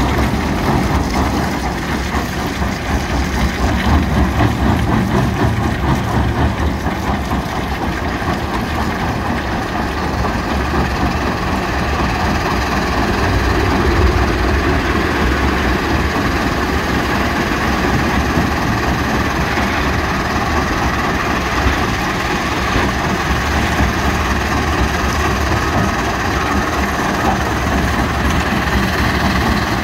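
Jonsson 1208 tracked mobile jaw crusher running under load, with its diesel engine and rock being crushed making a steady heavy rumble. A Volvo 480EL excavator feeding it adds engine noise.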